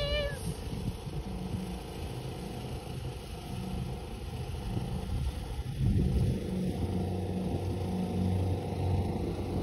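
Low rumble of a motor vehicle engine running nearby, growing louder about six seconds in.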